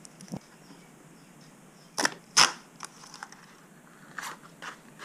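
Handling noises from unboxing small accessories: a few sharp clicks and rustles of parts and packaging, the loudest two about two seconds in, under half a second apart, with fainter ticks around them.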